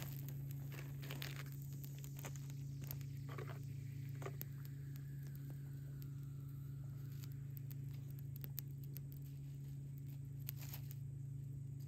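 Small kindling fire of dry twigs crackling while sticks are laid and snapped onto it, giving scattered sharp clicks and snaps. A steady low hum runs underneath.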